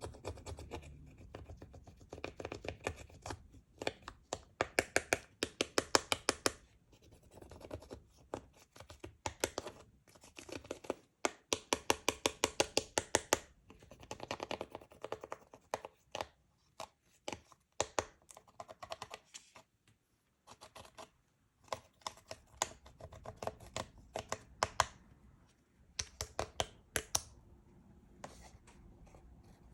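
Slime being squeezed and folded by hand, giving runs of rapid sticky clicks and pops from trapped air, in bursts of a second or two with short pauses between.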